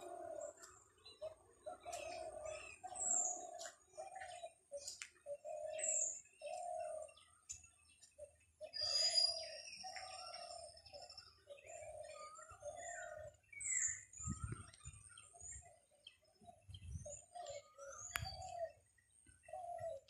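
Several birds calling: one repeats a low hooting note over and over, roughly once a second, while others add short high chirps and whistles. A few low thumps come in the second half.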